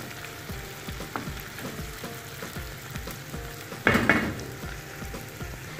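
Chopped tomato, onion and garlic sizzling in hot oil in a pan, with a brief louder stir of the spatula about four seconds in.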